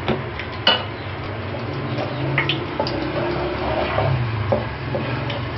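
Wooden spatula stirring cardamom seeds in hot oil in a nonstick wok, with scattered sharp taps and scrapes against the pan.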